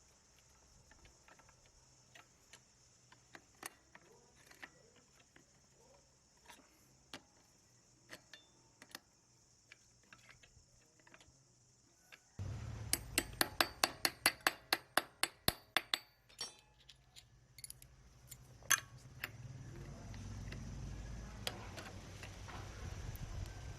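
Small metal parts and hand tools clinking and clicking during work on a 110cc Honda engine. About halfway through, a quick run of sharp even ticks comes at roughly five a second for about three seconds.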